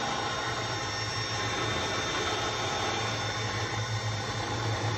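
Winch motor running steadily as it hauls a truss up into the tree, a constant low hum.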